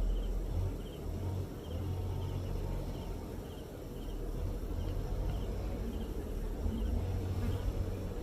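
Honeybees buzzing at an open hive, with a steady low rumble underneath. A faint high chirp repeats a little less than twice a second.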